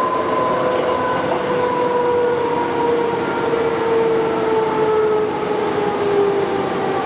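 Perth electric suburban train running, a steady rumble of wheels and motors with a whine whose pitch slowly falls, the sign of the train slowing down.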